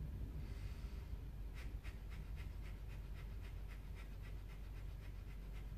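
Breath of Fire (Kundalini yoga fire breath): faint, rapid rhythmic puffs of breath through the nose, short forceful exhalations about three a second, starting about one and a half seconds in.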